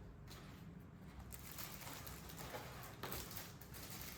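Faint handling noise of an unboxing: soft rustles and a few light knocks as the play button and its packaging are handled.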